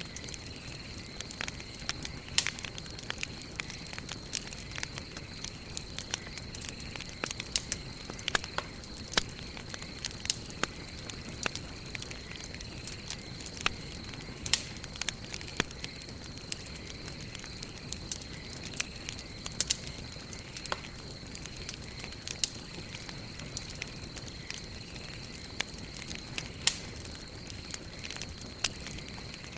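Wood fire burning, crackling with frequent irregular sharp pops over a steady low hiss.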